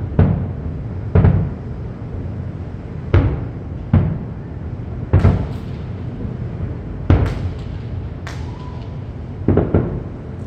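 Aerial fireworks shells bursting: about ten sharp booms at uneven intervals, with a low rumble carrying on between them.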